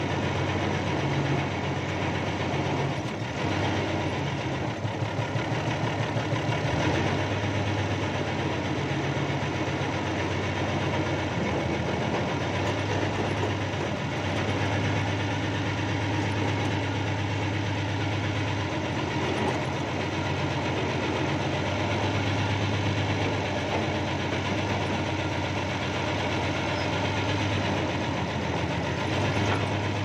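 Backhoe's diesel engine running steadily, heard from inside the cab, with a low drone that grows stronger in stretches as the machine works and swings. A short run of pulsing comes a few seconds in.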